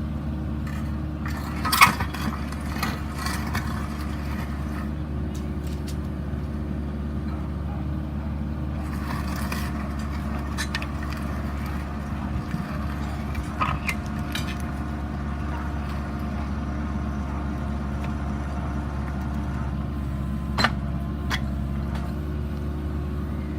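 An engine running steadily at a constant speed, with a few sharp clicks and knocks, the loudest about two seconds in.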